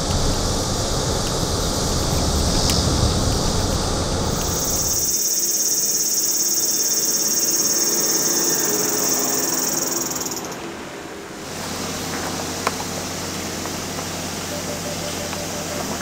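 Steady ambient noise in three abrupt sections: a broad low rumbling noise, then about five seconds in a strong, high, steady hiss, and about ten seconds in a quieter steady hum with faint tones.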